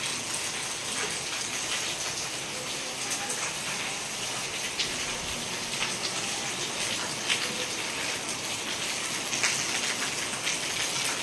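Heavy rain falling steadily on wet ground, with scattered individual drop ticks.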